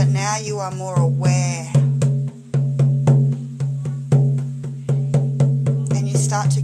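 Hide frame drum struck by hand in a steady, fast beat, each stroke leaving a low ringing boom. Brief wordless vocal sounds rise over the drumming twice in the first two seconds and again near the end.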